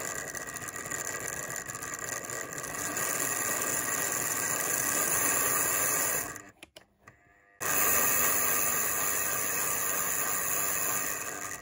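Hornby OO gauge locomotive chassis running under power: the small electric motor and worm gear run steadily. A little past halfway the sound cuts out for just over a second, then starts again abruptly. The chassis runs properly now that its axle-to-sidebar short has been insulated with nail varnish.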